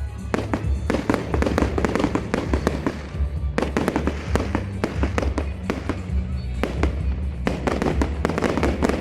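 Fireworks display: shells bursting in rapid, overlapping bangs and crackles, coming in dense clusters with brief lulls between them.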